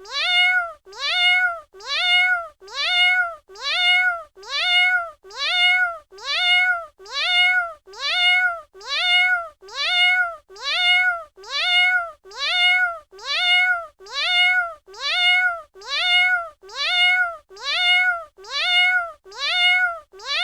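Domestic cat meowing over and over, about once a second, each meow the same short call that rises, holds and falls in pitch.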